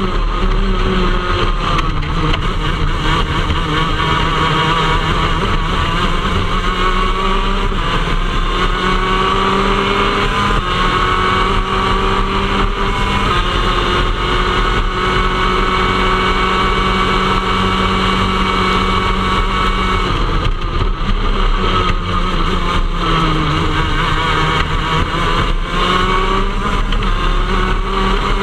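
Shifter kart's two-stroke engine running hard at high revs, heard from on board. Its pitch climbs slowly in long pulls, drops about twenty seconds in and climbs back up again.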